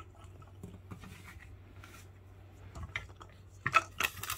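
Cat pawing at a wooden treat puzzle toy with a clear plastic ball on a spring: light scratching and small clicks, then a few sharper knocks and rattles near the end.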